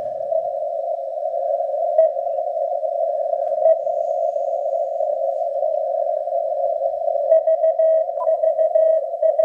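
Icom IC-7610 and IC-R9500 receivers in CW mode, giving band noise as a steady hiss squeezed into one narrow pitch band by a 200 Hz filter. From about seven seconds in, a weak Morse code signal keys on and off inside the noise, a 10-metre beacon on 28.209 MHz.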